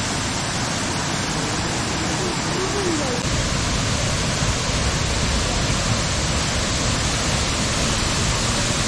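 Waterfall: a steady, dense rush of falling water, with its low rumble growing heavier about three seconds in.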